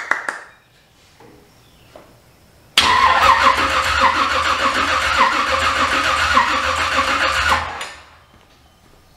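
1972 Chevy C10's engine being cranked by the starter for about five seconds, turning over without catching, then stopping. The engine is not firing, and starting fluid is needed in the carburetor next.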